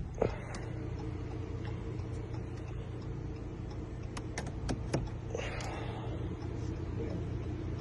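Steady low hum of the Jeep Cherokee's engine idling, with a few light clicks about four to five seconds in.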